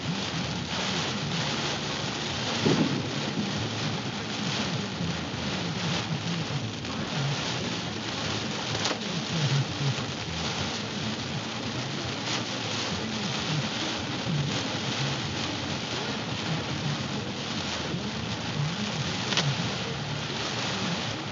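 Heavy rain drumming on a car's roof and windshield, heard from inside the car as a steady dense hiss with a few sharp ticks.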